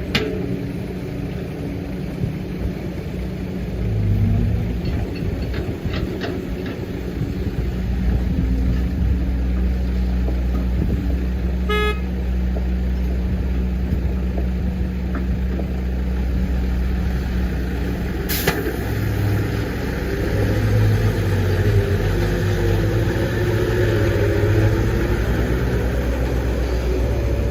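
Diesel engine of a Case 145D zero-swing excavator running steadily as it digs and loads dirt. A short horn toot comes about halfway through and a sharp knock about two-thirds in. In the last part the engine pitch rises and wavers as it works harder.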